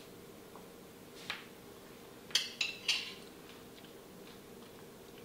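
A metal spoon clinking three times in quick succession against a ceramic plate, about two and a half seconds in, after one fainter tap a second earlier.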